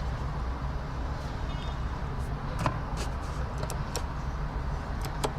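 Several short, sharp plastic clicks from the car's overhead interior fittings being handled, over a steady low hum in the car's cabin.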